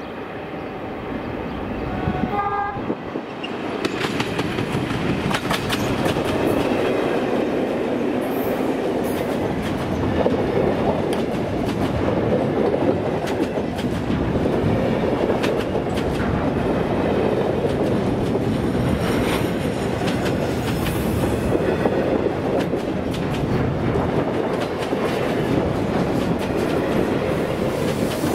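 SSR T-class diesel locomotives approaching, with a short horn note about two seconds in. Then a rake of freight wagons (container flats and grain hoppers) rolls past close by, wheels clickety-clacking over the rail joints.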